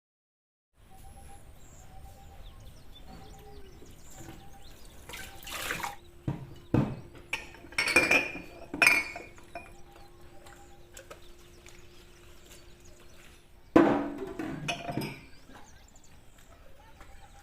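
Dishes and glasses clinking and clattering while being washed in a sink, with water running, over soft background music. The loudest clatters come in a cluster near the middle and once more near the end.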